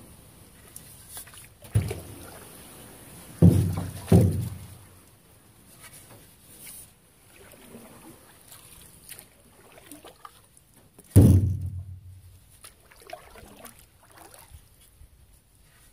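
Canoe being paddled with a wooden paddle: quiet water strokes, with four hollow thunks as the paddle knocks against the canoe's hull, one about two seconds in, a close pair a couple of seconds later, and one more near the end.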